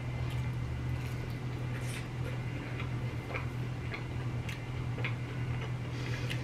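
Chewing of crispy lemon pepper fries dipped in cheese sauce: soft, irregular crunches and mouth clicks about once a second, over a steady low hum.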